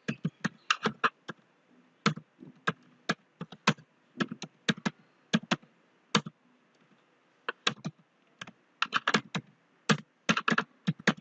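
Keystrokes on a computer keyboard: words typed in short runs of clicks with brief pauses between them, each word entered at a program's input prompt.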